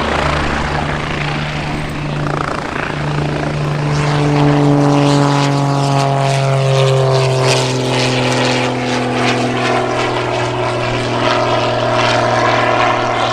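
Propeller-driven airplane flying past loudly, its engine drone sliding down in pitch from about four seconds in as it goes by.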